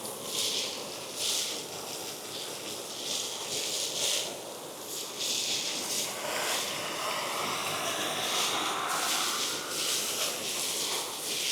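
Side channel blower industrial vacuum running, its suction hose pulling up dry foundry debris and metal chips, with a rushing hiss that swells and fades every second or so as material is drawn in. About six seconds in a steadier, higher tone joins the suction.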